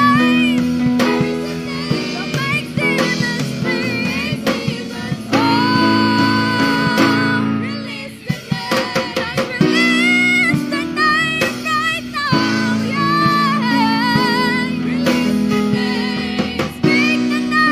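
Youth group singing a Christian worship song over band accompaniment of guitar and drums, the voices holding long notes with vibrato. About halfway through the music drops briefly and a quick run of drum hits leads back in.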